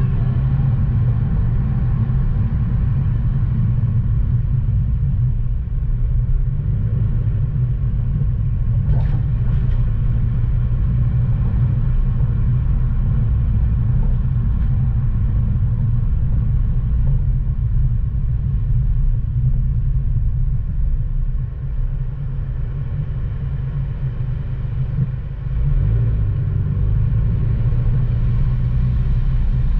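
Car driving along city streets: a steady low rumble of engine and road noise, dipping slightly for a few seconds about three-quarters of the way through.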